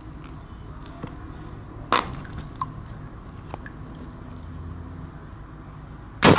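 Balloons popping: a sharp pop about two seconds in, a smaller one just after it, then a much louder burst near the end followed by a rush of noise.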